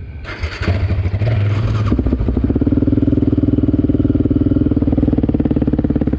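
ATV (quad) engine revving. It picks up sharply about half a second in, climbs to a higher pitch around two seconds in, and holds there steadily.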